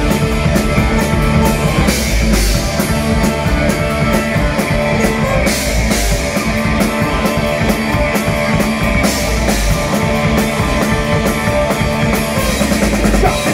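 Live punk rock band playing an instrumental passage on drum kit, distorted electric guitar and bass guitar, with a cymbal crash every three to four seconds.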